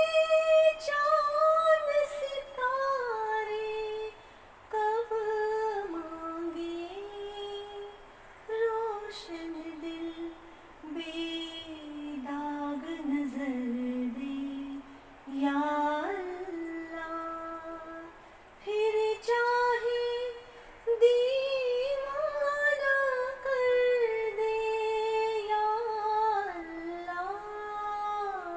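A woman's voice singing a slow, ornamented vocal line, sliding between notes in long phrases with short breaks between them.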